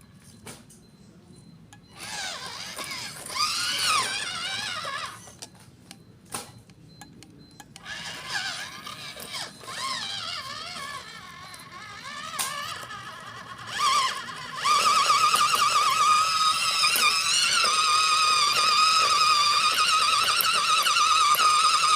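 Background music with a melodic line that wavers and glides in pitch. It comes in broken phrases at first, then turns louder and continuous about fifteen seconds in.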